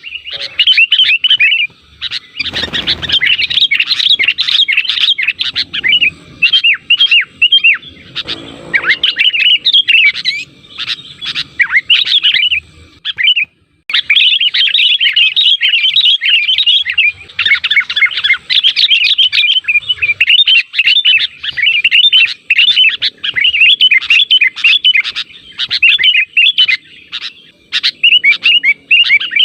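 Sooty-headed bulbuls chattering in a dense run of rapid, bubbly chirps, with a short break about halfway through.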